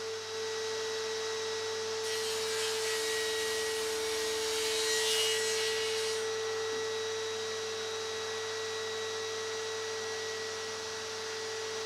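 Table saw running with a steady whine as it crosscuts a thick black walnut beam to length. The cutting noise swells about two seconds in and dies away about six seconds in, as the blade comes through the wood.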